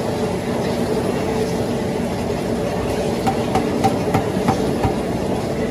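Industrial jacketed cooking kettle with planetary stirring arms running steadily as it churns a large batch of garlic paste, with a few light clicks in the second half.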